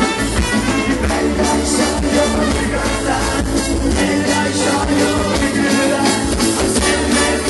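Live rock band playing loud through a PA: electric guitars and bass over a steady drum beat, with a lead singer singing into a microphone.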